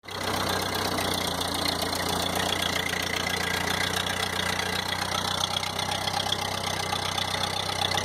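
1952 Ford 8N tractor's four-cylinder engine idling steadily.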